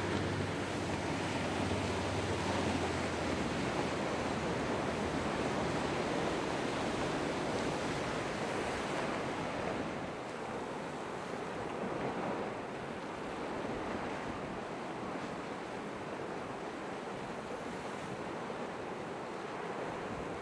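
Ocean waves and surf washing steadily at an inlet, with wind noise on the microphone. A low steady drone fades out about three seconds in.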